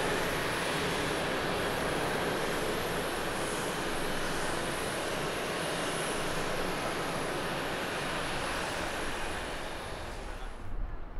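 Rolls-Royce Trent 1000 jet engines of an ANA Boeing 787-9 during its landing roll on a wet runway: a steady rush with a faint high whine that slowly eases and cuts off about ten seconds in.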